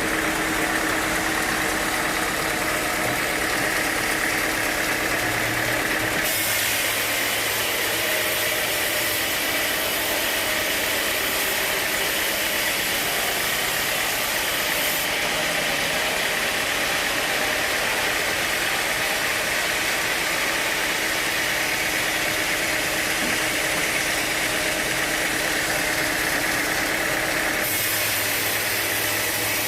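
Sawmill machinery running steadily. The tone changes about six seconds in and again near the end.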